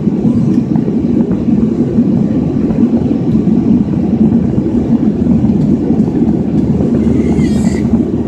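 Steady roar of an airliner's jet engines and rushing air heard inside the passenger cabin during the climb. Near the end there is a brief high-pitched squeal.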